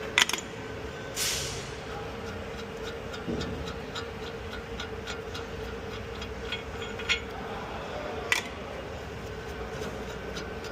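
Rapid, irregular light clicking and popping from a car's front end while turning, over a steady hum, with a few sharper clicks near the start and about eight seconds in. The noise sounds like a failing CV axle but is not one.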